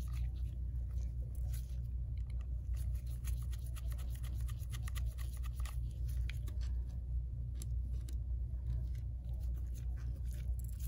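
Faint scattered ticks and small scrapes of a precision screwdriver backing out the two bottom pentalobe screws of an iPhone XS, over a steady low hum.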